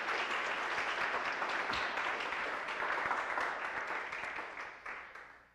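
Audience applause, a steady patter of many hands clapping in a lecture hall, dying away over the last second or so.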